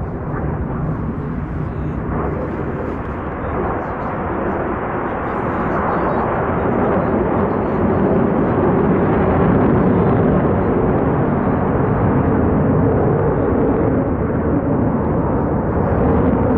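Jet engine roar from the Black Eagles' KAI T-50 trainer jets flying their display. The roar grows louder about six seconds in and then holds steady.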